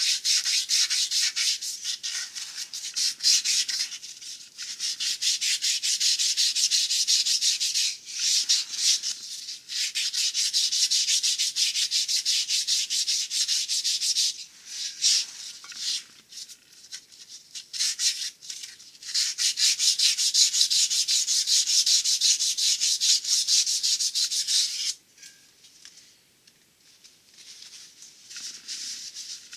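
Fine crocus cloth rubbed by hand around the hub (snout) of a Studebaker torque converter, a fast scratchy hiss of rapid strokes in long spells with short pauses, stopping near the end. The cloth is polishing the snout smooth where the transmission's front seal rides on it.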